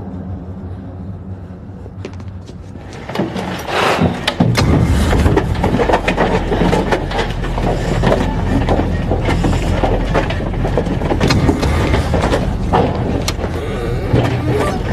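Horror film sound mix: a low steady drone, then about four seconds in a loud deep rumble with many knocks and scuffles.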